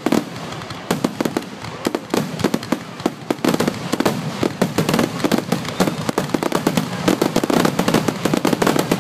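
Fireworks display: aerial shells bursting in a rapid barrage of sharp bangs, several a second, growing denser about three seconds in.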